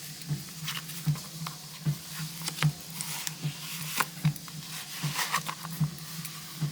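Soft rustles and light taps of a leather planner cover being handled. Beneath them runs a low steady hum that swells regularly about once every 0.8 seconds.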